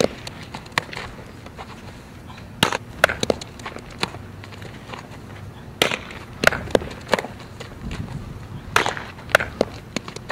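Softball fielding drill: sharp pops and cracks at irregular intervals as softballs are hit and smack into a leather fielding glove, with feet scuffing on infield dirt, over steady outdoor background noise.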